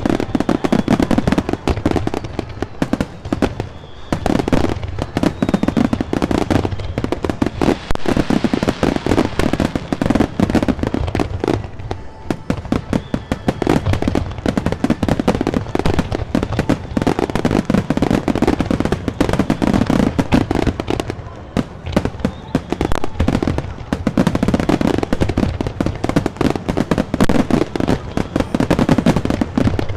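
Aerial firework shells bursting in a dense, rapid barrage of booms and crackles. Heavier volleys come every few seconds, with short lulls in between.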